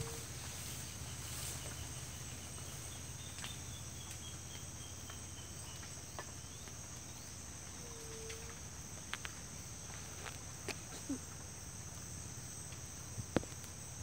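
Steady high-pitched insect chorus, cricket-like, with a short low hum about eight seconds in and a few faint clicks, the sharpest about a second before the end.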